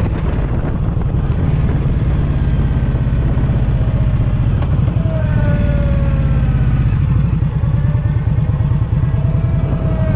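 Motorcycle engine running steadily under way on an unpaved gravel road, with tyre and wind noise over it. Past halfway its pitch sinks slowly, then climbs again near the end.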